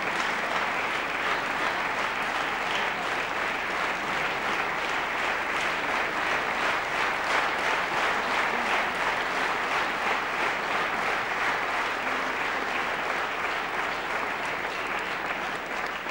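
Concert audience applauding steadily, a dense, even clapping that holds at one level throughout.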